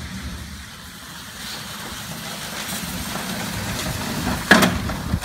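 A loaded wheeled cart rolling over a concrete floor with a low rumble, carrying a heavy cast-iron brake drum, with a sharp clunk about four and a half seconds in and a smaller one near the end.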